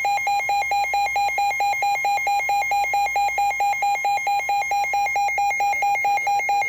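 Emergency Alert System attention tone before a severe thunderstorm warning: a loud, harsh electronic tone pulsing several times a second.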